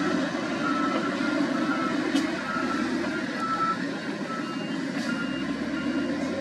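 SDLG wheel loader's diesel engine running as it reverses, its back-up alarm giving short repeated beeps, about two or three a second.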